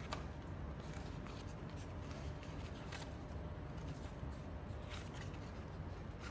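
A sheet of white paper being folded and creased by hand: faint rustling with a few short soft crackles scattered through, over a steady low room hum.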